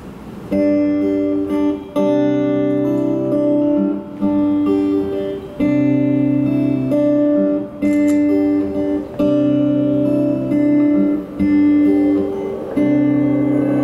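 Acoustic guitar strumming a repeating chord pattern, each chord struck and left to ring for a second or so, with low bass notes beneath: the instrumental opening of a live song.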